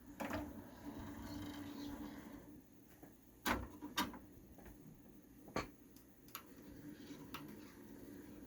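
Sony CDP-C700 CD changer's mechanism running: a small motor whirs for about two and a half seconds, then a series of sharp clicks and clunks, three loud ones followed by lighter ones, and the motor whirs again near the end.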